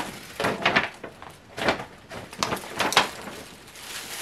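Paper being handled: a white paper gift bag and sheets of tissue paper rustle and crinkle in about four short bursts.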